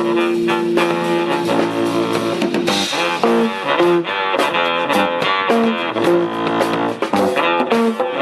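Music with guitar, drums and brass, in a blues or jazz style, with a steady beat.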